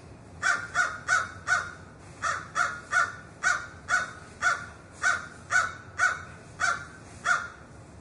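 A crow cawing: a run of about fifteen short caws at roughly two a second, with a brief pause after the first four.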